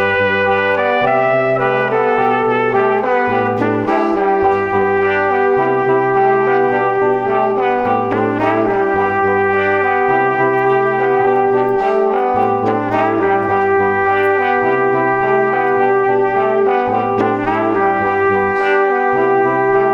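Background music led by brass instruments over a repeating bass line.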